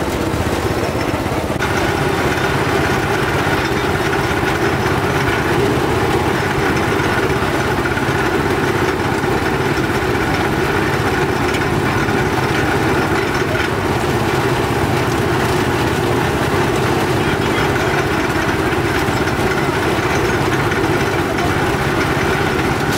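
Motor-driven sugarcane juice press running steadily, its rollers crushing cane as the juice pours out. Its tone shifts slightly about a second and a half in.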